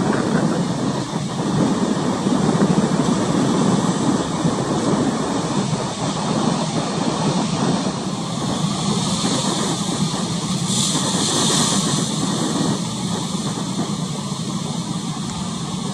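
Rough-sea ambience: a steady rumble of choppy water and wind, with a hissing wash that swells about nine seconds in and fades a few seconds later.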